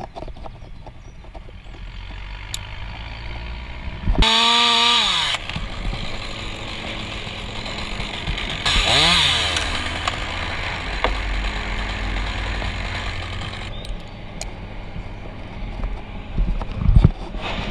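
A small two-stroke chainsaw running up in the tree, revved hard twice, about four and about nine seconds in, with lower running between. It drops off about three-quarters of the way through, and a few knocks follow, the loudest near the end.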